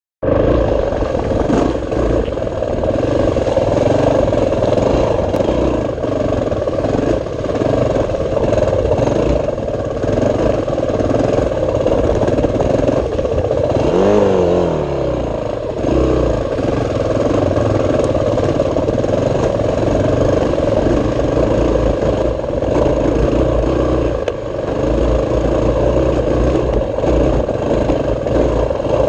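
Dirt bike engine running under constantly changing throttle on a rough trail, with one sharp rev that rises and falls about halfway through.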